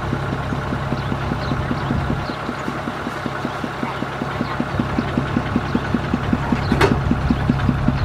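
Kubota DC70 rice combine harvester's diesel engine running with its threshing gear turning while the machine stands still, a fast, even pulsing over a steady hum. One sharp knock comes about three-quarters of the way through.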